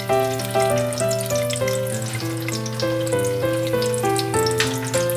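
Instrumental background music, a melody of short held notes over a steady low drone, with the light crackle of garlic cloves sizzling in oil in a steel pot underneath.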